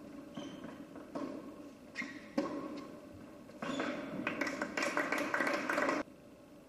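Tennis ball struck by rackets and bouncing on a hard court during a rally, a few sharp hits in the first half, the loudest about two seconds in. After the point ends, the crowd applauds for about two and a half seconds until the sound cuts off suddenly.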